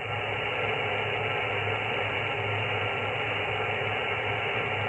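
Steady hiss of 10-metre sideband band noise from the Yaesu FT-901DM's speaker, with no station coming through, over a low hum.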